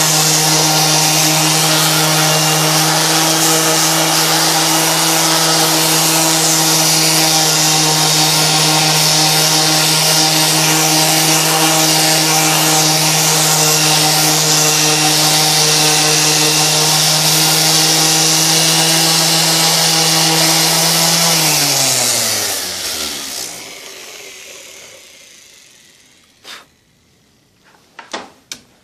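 Dexter Power 230 W random orbital sander running steadily with its disc sanding bare wood. About 21 seconds in it is switched off and winds down with a falling whine. A few faint knocks follow near the end.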